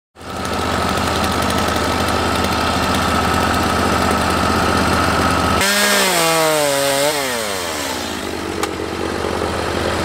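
Petrol engine running steadily at high speed for about five seconds. Then a chainsaw's engine note falls in pitch as its revs drop away, dying out over about two and a half seconds, with a sharp click near the end.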